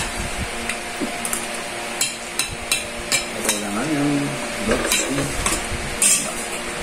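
Metal spoon clinking and scraping on a plate while eating, an irregular series of sharp clicks.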